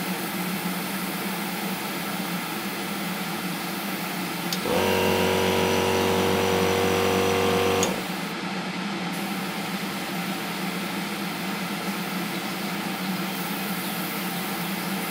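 Steady rushing of a spray booth extractor fan together with the air hiss of an Iwata TRN1 trigger airbrush spraying primer at about 25 PSI. About a third of the way in, a steady low motor hum joins for about three seconds and then cuts off.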